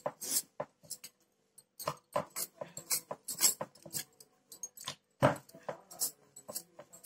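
Wooden rolling pin knocking and rolling over parotta dough on a board: a string of irregular short knocks and clatter, with a louder knock about five seconds in.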